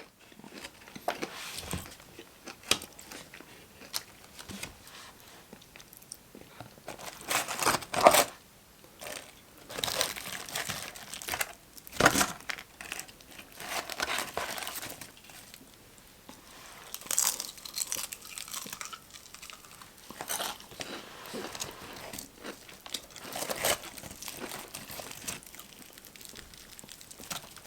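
Close-up eating of crispy fried chicken: irregular crunches and crackles from biting into the breading, with chewing between bites.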